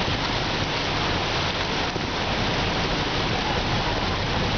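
Steady rushing and splashing of floodwater churned up by a bus driving through a flooded street.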